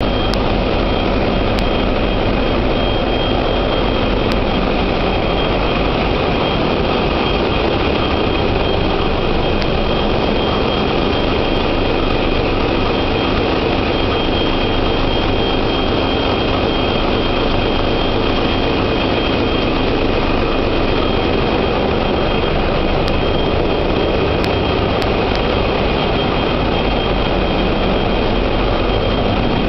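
Large multi-cylinder marine diesel engines running in a ship's engine room: a very loud, steady, unchanging din with a thin, constant whine high above it.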